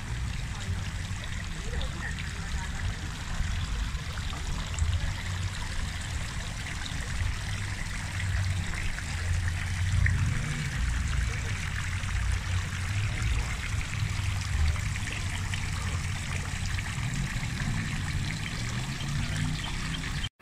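Garden fountain's water trickling and splashing steadily, over a fluctuating low rumble.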